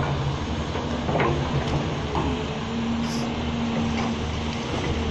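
Diesel engines of large hydraulic excavators, a Hyundai R-390 and a Tata-Hitachi ZX-450, running steadily under working load, with a few knocks about a second in. A steady higher tone joins about two seconds in.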